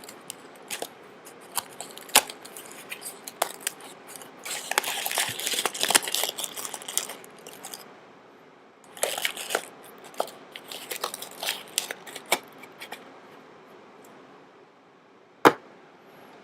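Crinkling and rustling handling noise with scattered clicks and taps, in two busy stretches, and one sharp click near the end.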